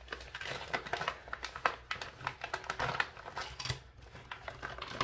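Packaging crinkling and rustling in a quick, irregular run of small clicks and taps as a diamond-painting toolkit packet is worked open by hand.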